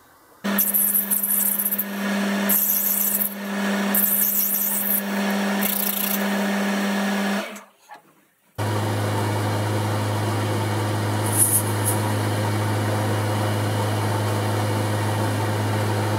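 Boxford lathe running while it machines a brass bush held in a four-jaw chuck, with four bursts of high cutting noise over the first seven seconds. It stops briefly about eight seconds in, then runs on steadily with a deeper hum.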